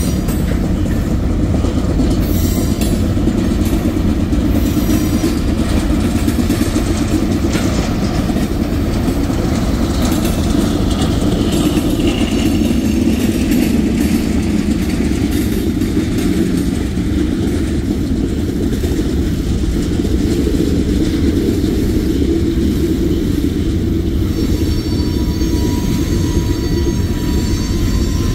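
Freight cars of a CSX manifest train rolling past at speed: a steady low rumble of steel wheels on rail. A faint high steady tone joins near the end.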